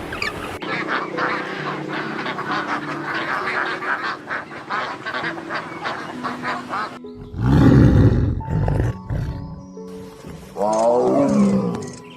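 Animal calls over background music with steady held notes. A dense rapid run of calls fills the first seven seconds, a loud low call comes about seven seconds in, and a pitched call falls in pitch near the end.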